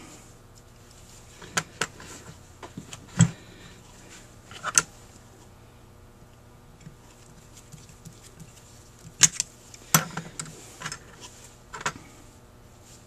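Scattered small clicks and knocks of hand work on a Rochester 4GC carburetor throttle body: a screwdriver and small screws on the throttle-plate shaft, and metal parts tapped and set down. There are about eight separate clicks, the sharpest about three seconds in and twice near nine and ten seconds.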